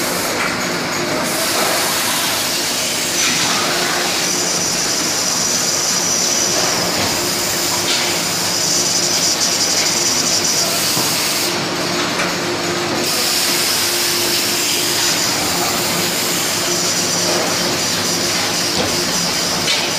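Steady machinery din on an aluminum cookware production line: a constant hiss with a low hum underneath and a high whine that comes and goes.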